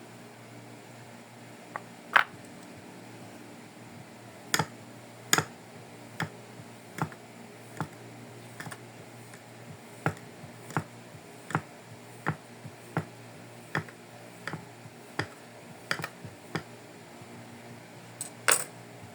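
A blade cutting through kinetic sand, each cut a short, sharp tap, roughly one or two a second. One louder tap comes about two seconds in, and a quick cluster of taps comes near the end.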